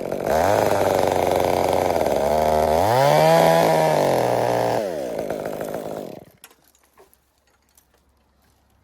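Chainsaw running as it cuts a maple limb, its engine pitch rising and falling once in the middle, then stopping about six seconds in.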